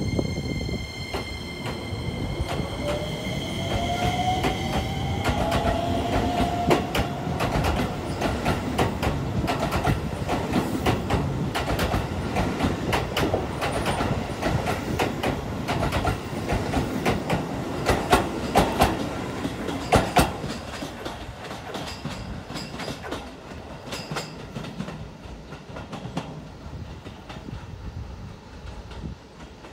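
Keisei 3000-series electric commuter train pulling out of a station: its traction motors whine, rising in pitch as it accelerates. Then the wheels clatter over rail joints, loudest about two-thirds of the way in, fading as the train draws away.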